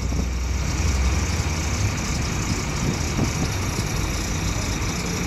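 A large engine idling steadily, with its energy sitting low and no sudden events.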